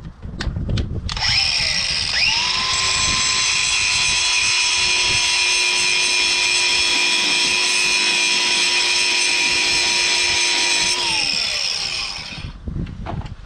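Power grinder spinning up and grinding at a motorcycle drive chain link's rivet, a steady high whine with harsh grinding hiss for about ten seconds, then winding down near the end. A few clicks come before it starts.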